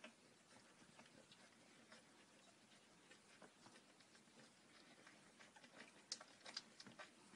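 Faint suckling and smacking of week-old puppies nursing from their mother: a scatter of small clicks, with a few louder ones about six seconds in.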